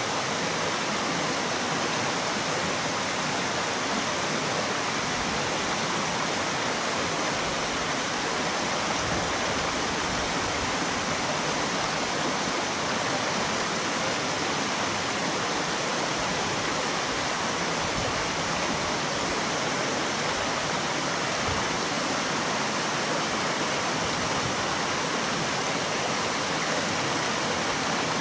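Mountain stream water rushing over rocks in a steady, unbroken wash.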